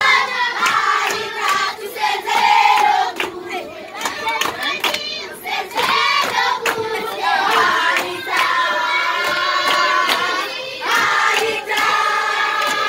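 A group of children singing together while clapping their hands along.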